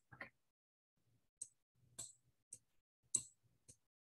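Faint computer mouse clicks, about six spread unevenly over four seconds, as underline strokes are drawn on screen.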